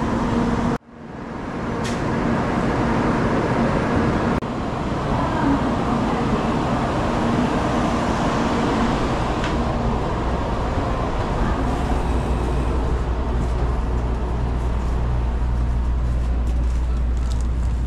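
Steady noise of a busy station platform beside a stationary Shinkansen, cut off for an instant about a second in. Toward the end it gives way to the steady low hum inside the standing train car.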